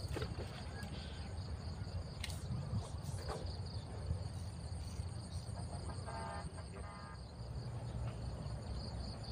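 Insects trilling in a steady, high chorus over a low rumble, with a few faint clicks and a short rattling call about six seconds in.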